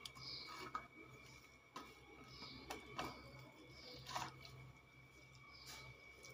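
Faint wet squishing with a few soft clicks and taps as hands squeeze grated raw mango, salted and coated with turmeric, wringing its juice out onto a steel plate.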